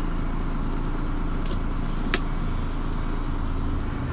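Mitsubishi Fuso Fighter truck's diesel engine idling steadily, heard from inside the cab, with a single light click about two seconds in.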